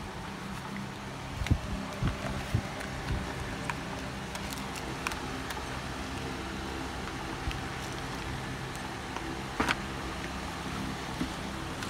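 Product packaging being handled: scattered taps, clicks and rustles of cardboard boxes, a watch box and a plastic bag, with a sharper click about ten seconds in. A steady low hum runs underneath throughout.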